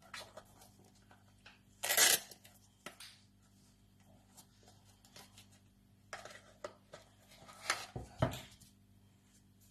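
Handling noise from a soft-soled Tikki children's shoe being flexed and its insole pulled out: scattered rustles, scrapes and light clicks, the loudest about two seconds in and a cluster near the end.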